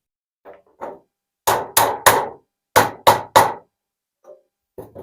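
Sharp tapping knocks, two quick sets of three with a few fainter knocks around them, as the hand saw's handle bolts are tapped into place while the handle is refitted.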